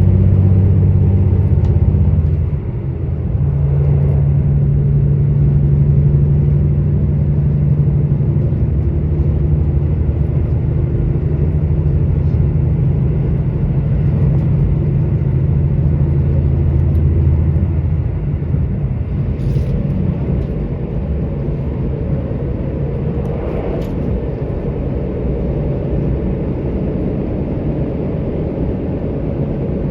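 Diesel engine of a KiHa 85 railcar running under power, heard from inside the car as a steady low drone; its note dips briefly about two seconds in. About eighteen seconds in the engine note falls away and the rumble of the wheels on the track carries on, with a couple of faint clicks.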